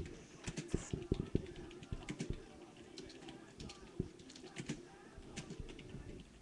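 Typing on a computer keyboard: irregular key clicks and taps, some in quick runs.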